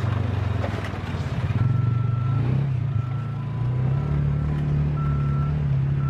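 A vehicle's engine running steadily, with a backup alarm beeping about once a second that starts about a second and a half in.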